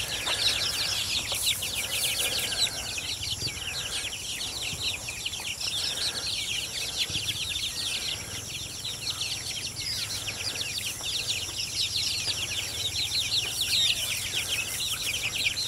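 A flock of young chickens peeping and cheeping without a break, many high, short chirps overlapping one another.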